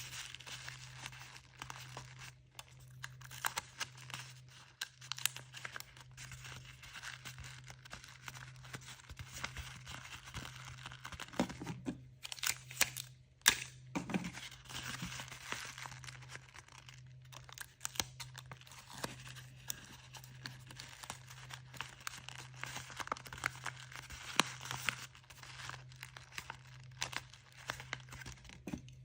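Paper rustling and crinkling with intermittent rips of sticky tape being pulled and torn, as the edges of a paper squishy stuffed with crumpled paper are taped. A steady low hum runs underneath.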